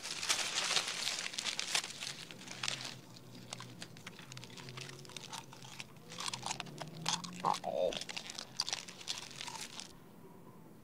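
Aluminium foil crinkling and crunching as it is chewed between the teeth, in two spells of dense crackling with a lull between them.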